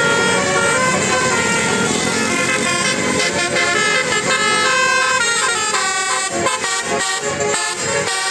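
Bus 'telolet' Basuri multi-tone air horn playing a quick tune, its notes stepping up and down, over the rumble of the bus's engine. The notes change faster in the second half.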